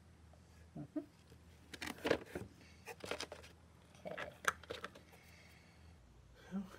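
Small clicks, taps and rustles of hands handling small gas cap parts and a plastic grease jar on cardboard, in a quick scattered cluster for a few seconds.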